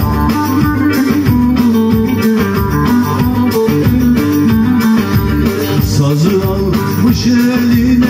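Live amplified Turkish folk music: a bağlama (saz) is plucked in a busy instrumental passage with accompaniment, leading into the vocal.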